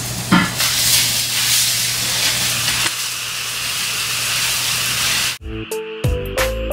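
Beef and skewers sizzling on foil over a tabletop grill: a dense, steady hiss over a low hum, with a knock of the metal tongs near the start. About five seconds in the sizzle cuts off and music with a beat begins.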